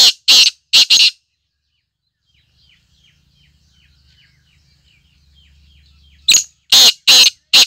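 Caged black francolin calling: two bouts of its loud, harsh call, one at the start and one near the end, each a quick run of four or five notes. Faint chirping of other small birds fills the gap between them.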